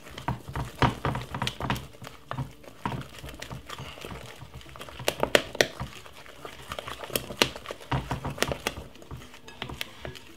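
A utensil scraping and clicking against a glass mixing bowl as thick sponge-cake batter is stirred, in quick irregular strokes.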